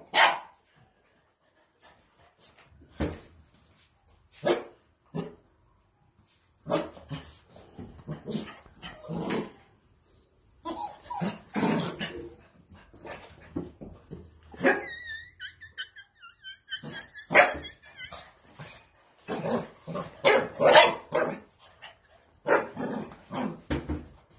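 Ten-week-old Spanish water dog puppies barking, yapping and growling at play, in short scattered bursts with pauses between. A brief high warbling sound comes about two-thirds of the way through.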